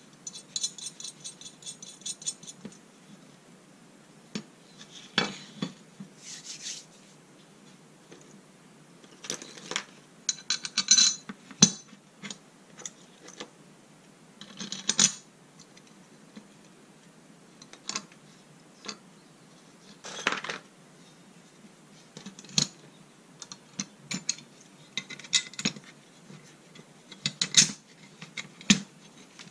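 Flat steel plates, bolts and small metal parts being handled, fitted together and set down on a workbench: scattered metallic clinks, knocks and short scrapes, with a brief jingle of small parts in the first couple of seconds.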